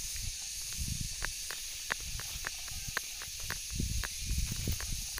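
Footsteps along a dry dirt path, with light crackles of dry leaves and stalks underfoot a few times a second, over a steady high hiss.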